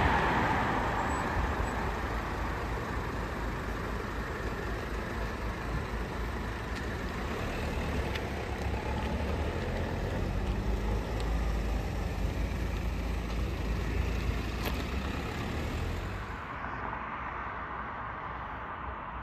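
Fire service command car driving past, its engine and tyre noise fading over the first couple of seconds. Then a steady low rumble of vehicle engines and traffic, which drops to a quieter background near the end.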